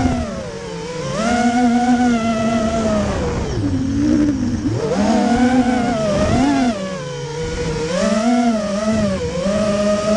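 Propeller and motor of a radio-controlled plane heard from a camera mounted on the plane: a steady whine whose pitch drops and climbs several times as the throttle is changed through turns.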